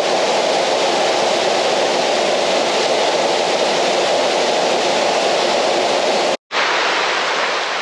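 Steady rush of falling water from a waterfall. The sound cuts out for a split second near the end, then resumes.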